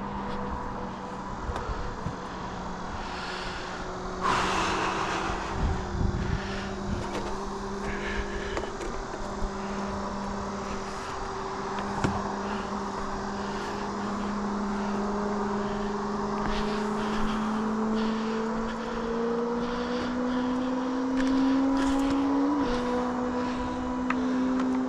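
A steady engine drone, a low hum whose pitch creeps slowly upward and jumps slightly near the end, with a short burst of noise about four seconds in and scattered sharp clicks.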